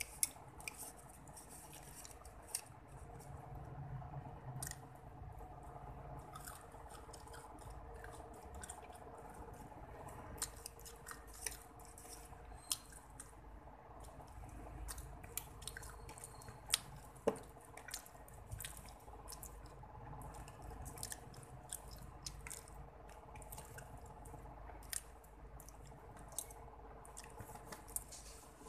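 Metal fork and spoon clicking and scraping against each other and the paperboard food box while picking the last meat off a fried chicken piece, in irregular light clicks.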